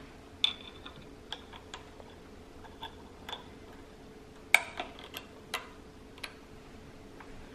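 Irregular small clicks and taps of a metal brake-cable end and a plastic handbrake lever being handled while the cable is fitted into an electric scooter's handbrake, the loudest click about four and a half seconds in.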